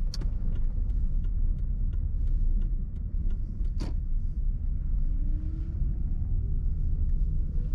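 Car in motion heard from inside the cabin: a steady low rumble of engine and road noise, with scattered light ticks. From about five seconds in, a faint engine note rises in pitch as the car speeds up.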